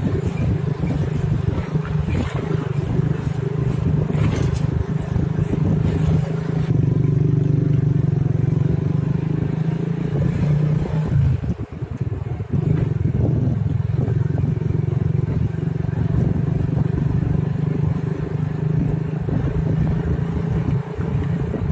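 Motorcycle engine running steadily while being ridden, with road and wind noise; the engine sound dips briefly about halfway through.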